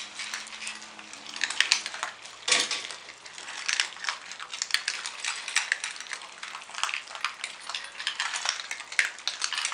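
Several Papillon dogs crunching dry kibble from stainless steel bowls: a dense run of crunches with metal clinks as the bowls are nudged.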